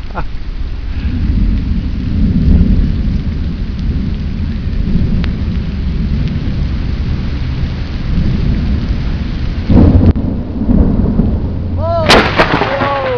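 Thunder from a nearby lightning strike rumbling low and long, swelling about two seconds in and again near the end.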